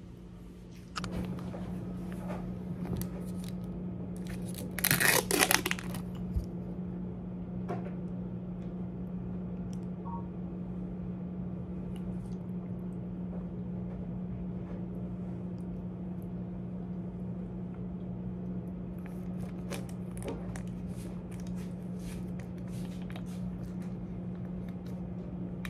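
Handling of a plastic pudding cup and a small sauce sachet: a loud crinkling rustle about five seconds in, then scattered small clicks and rustles. A steady low hum runs underneath.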